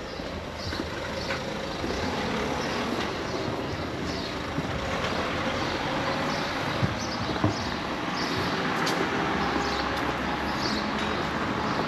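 City street traffic: a steady hiss of passing vehicles, with a faint engine tone that drifts slowly in pitch and small high ticks repeating about twice a second.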